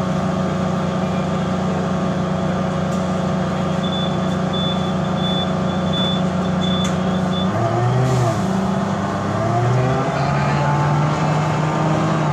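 Mercedes-Benz O405G articulated bus engine running steadily, then pulling away from about seven seconds in, its pitch climbing and dropping back as the Voith DIWA automatic gearbox shifts up. A high beep repeats about twice a second for a few seconds in the middle. The uploader calls the engine bad and its sound weird.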